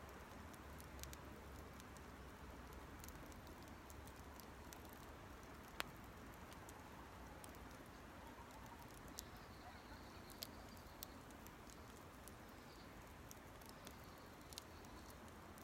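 Small campfire burning quietly, with scattered sharp crackles and pops from the burning wood, one louder pop about six seconds in.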